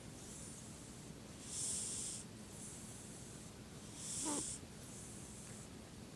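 A sleeping pet snoring: two loud hissing breaths about two and a half seconds apart, each followed by a softer one. The second loud breath carries a brief whistle.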